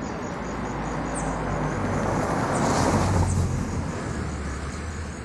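A motor vehicle passing on the road, growing louder to a peak about three seconds in and then fading away.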